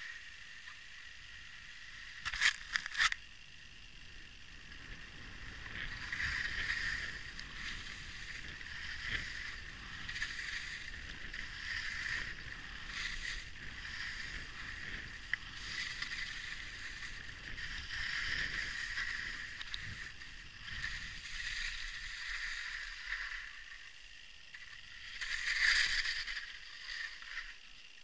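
Skis hissing and scraping over snow through a run of turns, swelling with each turn, with a few sharp clatters about two and a half seconds in. A louder scrape near the end as the skier stops.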